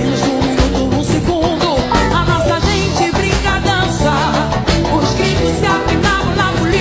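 Axé music played by a band with drums and percussion keeping a steady, driving beat, with a woman's voice singing over it.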